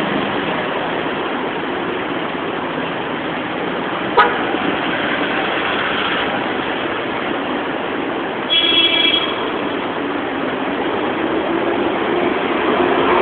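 Street traffic, a steady wash of passing vehicles, with one short car-horn toot about eight and a half seconds in and a sharp knock about four seconds in.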